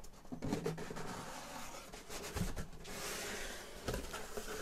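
Cardboard box being opened by hand: a few soft knocks as the box is gripped and handled, then the scrape and rustle of the cardboard lid sliding up off the box about three seconds in.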